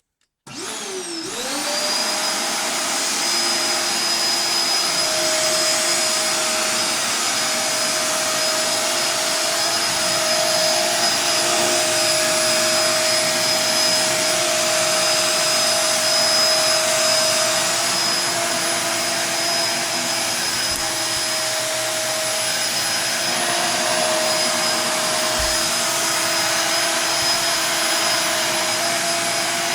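Shark vacuum cleaner switched on about half a second in, its motor spinning up to speed within a couple of seconds, then running steadily with a constant whine while vacuuming carpet.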